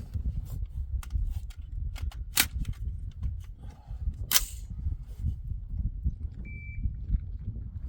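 Two gunshots about two seconds apart, each a sharp crack, over a steady low rumble of wind on the microphone. A brief high ringing tone comes near the end.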